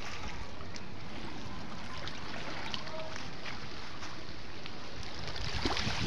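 Shallow seawater lapping and trickling among rocks at the shoreline, with a low wind rumble on the microphone. A brief louder rush of noise comes near the end.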